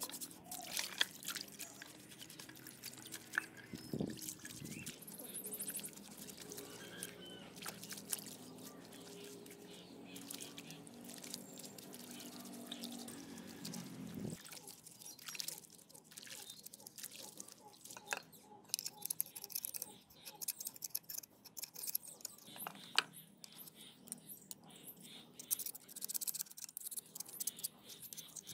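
Rusty motorcycle engine parts being washed by hand in a tub of soapy water: scrubbing, splashing and dripping water with small knocks of metal on metal. A steady low hum runs underneath for the first half.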